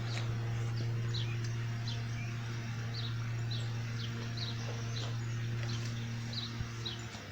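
A small bird chirping over and over in short, high notes, about one or two a second, over a steady low hum.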